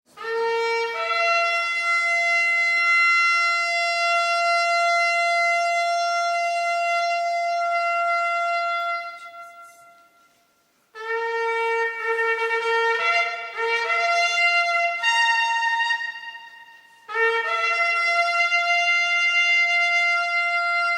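Shofar blasts. A long blast starts on a low note, jumps up to a higher held note and fades out about halfway through. Then comes a run of short broken blasts changing pitch, and near the end another long blast rising from low to high that is still sounding.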